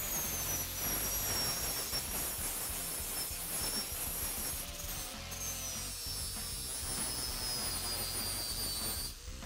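Angle grinder grinding the edges of cut steel plate: a high motor whine over the gritty grinding noise. The whine slowly falls in pitch, breaks briefly about halfway, and cuts off near the end.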